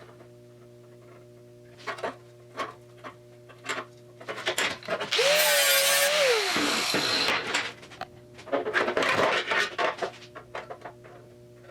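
A hand-held electric grinder spins up briefly about five seconds in, grinds the steel quarter valance for about a second and winds down. Around it are clicks, knocks and scraping of the sheet-metal panel being handled and test-fitted, over a steady low hum.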